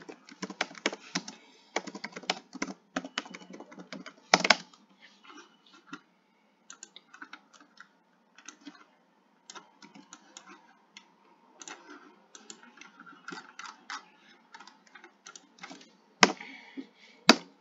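Typing on a computer keyboard: quick, irregular keystrokes in bursts with short pauses, and a few louder key strikes, two of them near the end.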